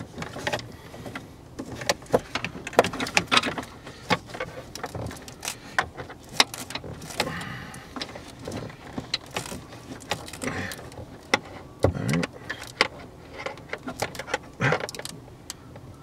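An audio cable and hands rustling, scraping and clicking against the plastic dashboard trim as the cable is worked down behind the dash. The sounds are irregular clicks and rustles with no steady tone.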